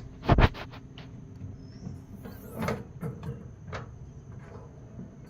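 A tool-chest drawer being pushed shut with a loud double bang about half a second in, followed by a few lighter knocks and clicks as the next drawers are handled.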